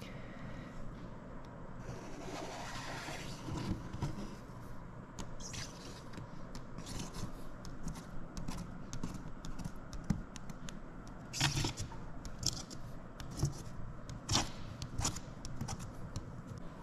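A small hand-held blade scraping dried pinstripe paint off a glass panel. It goes in a quick run of short, irregular scraping strokes, a few louder than the rest.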